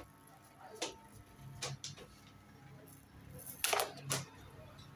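Light clicks and knocks from hands handling a flat indoor digital TV antenna stuck to a wall, shifting it to find better reception: a few single clicks, then a louder pair near the end.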